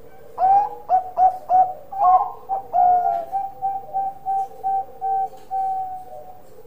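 Zebra dove (perkutut) cooing. It opens with a few quick rising notes, then runs into short, evenly spaced coos about three a second, ending on a longer held note.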